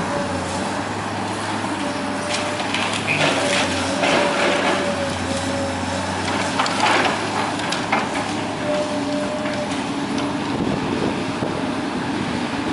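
A Komatsu PC210 tracked excavator's diesel engine running steadily under load while its demolition grab tears into the building, with sharp cracks and crunches of breaking timber and masonry, clustered about two to four seconds in and again about seven seconds in.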